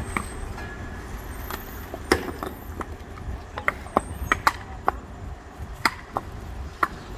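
Concrete paving stones clacking and being knocked into place by hand: sharp, irregular clacks, several in quick succession around the middle. Underneath, a steady low rumble from the Hidromek 102S backhoe loader's idling engine.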